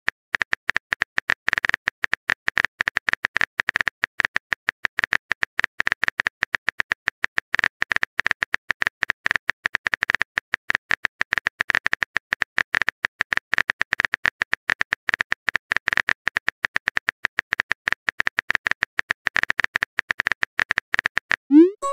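Texting-app keyboard typing sound effect: rapid, irregular key clicks, about ten a second, as a long message is typed. Near the end, a short pitched chime with a rising sweep marks the message being sent.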